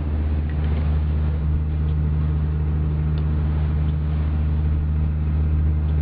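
A research vessel's engine running steadily: a constant low drone made of several steady pitched tones.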